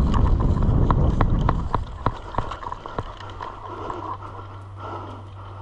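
Footsteps of a player running, a quick irregular series of sharp steps that slows and thins out, over low rumble from movement on the microphone.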